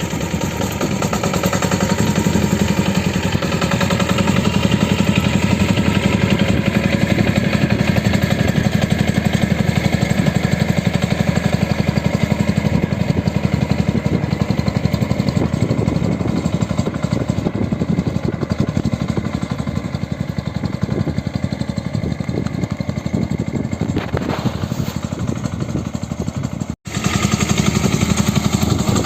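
Sanedo, a home-built motorcycle-engined farm vehicle, its engine running steadily with a fast, even firing beat; the sound breaks off for an instant near the end.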